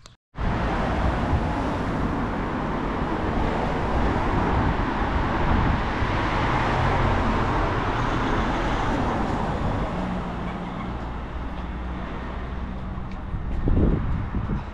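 Vehicle on the move: steady rushing road and wind noise over a low engine hum, swelling louder briefly near the end.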